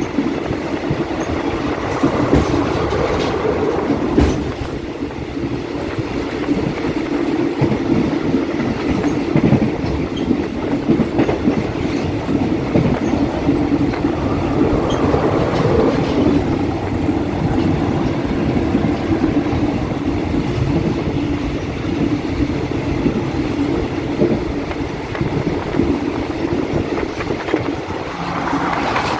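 Wheels of a moving railway carriage clattering over the rail joints, a steady clickety-clack over a continuous running rumble, heard from inside the carriage with the windows open. It is the sound of wheels striking the joints of jointed track.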